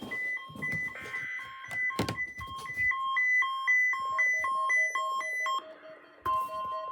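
Weather-radio electronic alert tones: a rapid run of alternating high and low beeps, with a click about two seconds in. A lower pulsing tone joins about four seconds in, and a steady warning-alarm tone starts just after six seconds.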